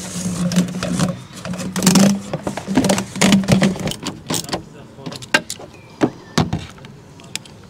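Ribbed plastic snorkel air hose scraping and creaking as it is worked into place among the engine-bay parts. This is followed by a run of sharp separate clicks from a screwdriver on a worm-drive hose clamp.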